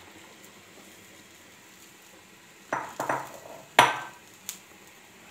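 Kitchenware clattering: a couple of knocks about two and a half to three seconds in, then a sharp, loud clink just under four seconds in and a small click after it, as dishes and utensils are set down and picked up.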